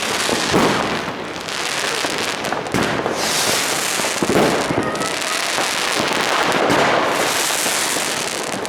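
New Year's Eve fireworks and firecrackers going off all around in a dense, continuous barrage of bangs and crackling, with a hiss from a rocket about three seconds in.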